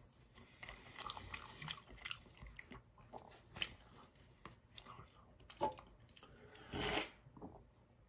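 Quiet close-up chewing, with wet mouth clicks and lip smacks from someone eating a soft sausage, egg and cheese roll-up and licking their fingers. A brief louder mouth noise comes near the end.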